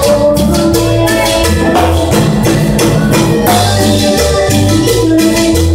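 Live Latin dance band playing loud and amplified: a repeating bass line and keyboard melody over congas and drums keeping a steady, even beat.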